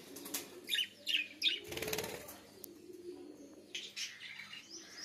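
Caged budgerigars chirping, short high falling calls about a second in and again near the end, with a brief flurry of wing flaps about two seconds in.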